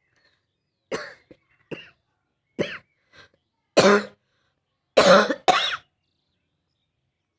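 A person coughing: a run of about eight short coughs, the last three the loudest.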